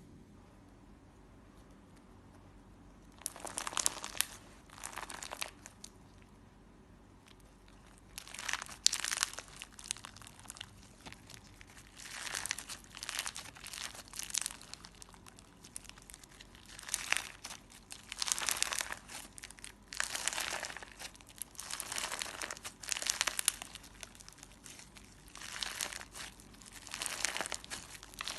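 Clear slime being kneaded and squeezed by hand, giving irregular bursts of crackly, sticky squishing from about three seconds in.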